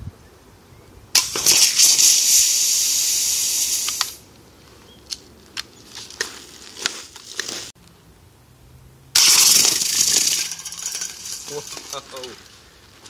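Two part-full aerosol spray paint cans punctured by BB shots, each starting suddenly into a loud hiss of escaping paint and propellant. The first hisses for about three seconds; the second starts about nine seconds in and fades out over a couple of seconds.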